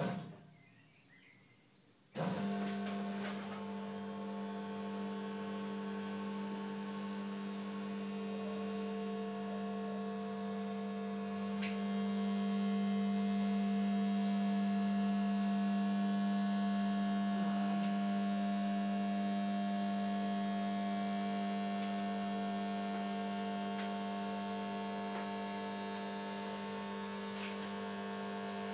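Electric hydraulic pump of a scissor car lift starting about two seconds in and running with a steady hum while the lift raises a car. The hum grows a little louder around the middle of the lift.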